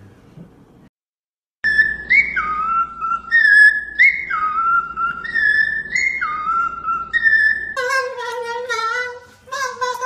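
Cockatiels whistling a repeated two-note phrase, a high note dropping to a lower one, about once a second. Near the end this cuts to a lower, wavering voice-like call with strong overtones.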